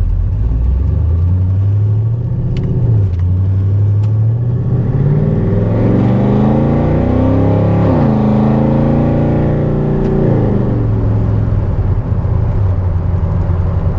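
GM V8 with its Displacement on Demand system deleted, accelerating through the gears. The engine note climbs in pitch and drops at a shift about three seconds in, climbs again until another drop near eight seconds, then falls away a little after ten seconds as the throttle comes off. The engine is running without a tune after the delete.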